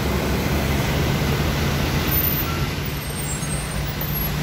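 Trucks and cars driving through floodwater on a road: a steady engine hum over a continuous hiss of water and tyres.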